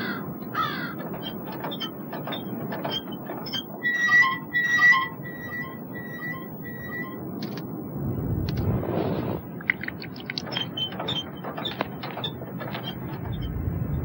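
Advert sound effects: a creaking, clanking mechanism with a squeak repeated five times in a row, bird calls, and a low rumble about eight seconds in, over a steady hiss.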